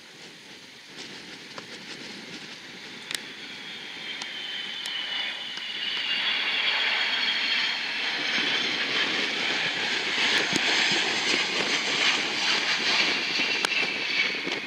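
Four-engine RC-135 jet on final approach with its landing gear down, its turbofan engines whining and rushing as it comes in low and passes close. The noise grows louder from about four seconds in, and the high whine glides slowly downward in pitch as it goes by.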